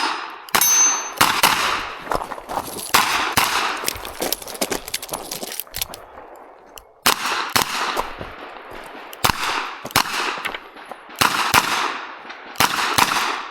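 Revolver shots fired in quick strings, often less than half a second apart, with short breaks between strings and a gap of about a second near the middle.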